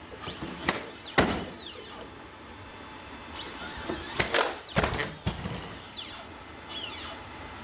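Boston Dynamics Atlas humanoid robot in motion: a series of sharp thumps and knocks, two about a second in and a cluster around four to five seconds in, with high whines gliding up and down in pitch between them.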